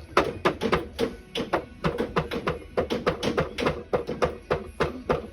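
Rapid, irregular hammer strikes, about three to four a second, each with a short metallic ring, typical of construction work on beams.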